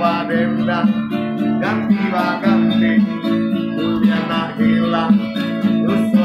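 Acoustic guitar strummed in a steady rhythm, with a man singing the melody over it.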